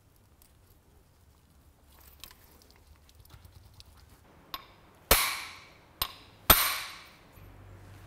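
Three sharp metal-on-metal strikes, like a hammer hitting steel parts, about five seconds in. The first and last ring on for about a second.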